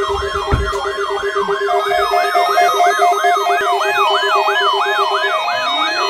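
Several NOAA weather radio receivers sounding their alert alarms at once for a Required Weekly Test. A siren-like warbling tone rises and falls about three times a second over a fast-pulsing low beep and higher stepped beeps. The low beep stops about five seconds in as a rising tone comes in.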